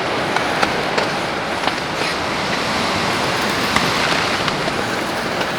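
Steady rush of heavy rain in a mountain storm, with scattered sharper drop taps through it.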